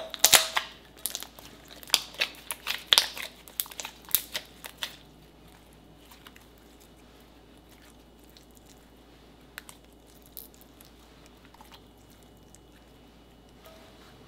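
Sticky white slime being pressed, peeled off a marble countertop and kneaded by hand, with rapid crackling and popping for about the first five seconds, then only occasional faint clicks as it is stretched and folded.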